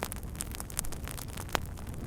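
Wood fire burning with a steady low rumble and irregular sharp crackles and pops, one louder pop about one and a half seconds in.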